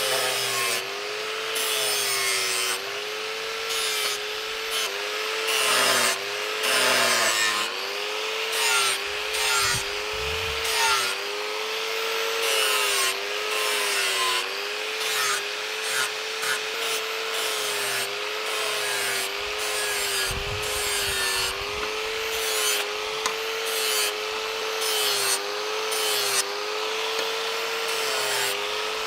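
Angle grinder with an abrasive disc grinding a steel knife blade. The motor's whine wavers up and down about once a second as the disc is pressed on and eased off, over a steady rasping hiss of metal being ground.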